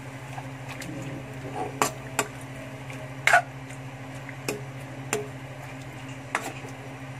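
Spatula knocking and scraping against a metal wok while stirring squid, about six sharp clacks spaced irregularly, the loudest a little past the middle. A steady low hum runs underneath.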